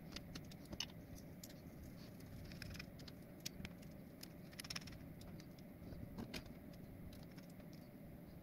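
Light scattered clicks and taps of small screws, a screwdriver and 3D-printed ABS parts being handled during assembly, over a faint steady low hum.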